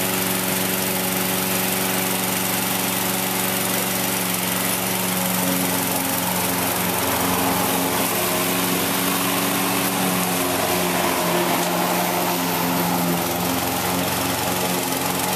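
Gasoline walk-behind lawn mower engine running steadily at working speed, its pitch wavering slightly as it is pushed.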